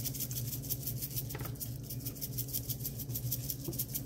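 Seasoning shaken from a shaker bottle over raw chicken: a rapid, even rattle of granules, over a steady low hum.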